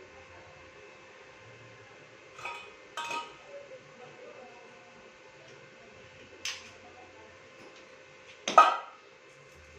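A few separate clanks and clinks of hard objects, metal or glass-like, knocking together, the loudest near the end, over a steady faint hum.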